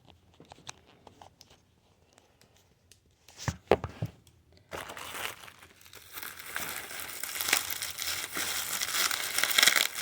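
A few light clicks and a couple of knocks, then, from about halfway in, continuous crinkling of plastic packaging being handled and unwrapped, growing louder toward the end.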